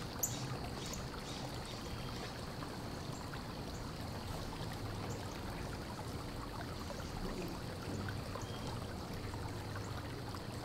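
Low, steady background noise with a low hum, and one sharp click about a quarter second in, followed by a few faint clicks.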